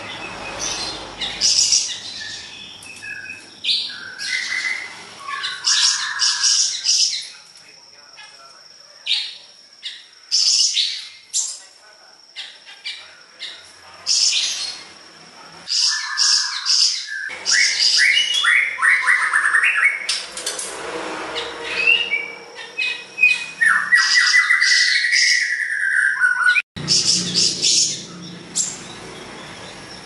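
Caged siri-siri besar songbird singing energetically: bursts of sharp chirps, rattling notes and short trills in quick phrases with brief pauses, including a falling trill near the end.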